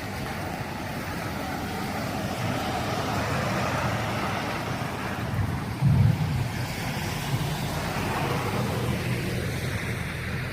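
Heavy rain falling: a steady rushing hiss over a low rumble, with a short thump about six seconds in.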